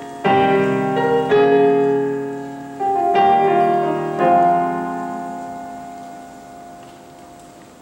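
Yamaha digital keyboard playing a piano sound: a few slow chords, the last one struck about four seconds in and left to ring out and fade. It is the song's final chord.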